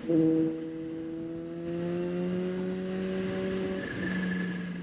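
Kawasaki Ninja H2's supercharged inline-four pulling away under throttle. It opens with a brief louder burst, then its pitch climbs steadily for nearly four seconds before dropping near the end, as at a gear change.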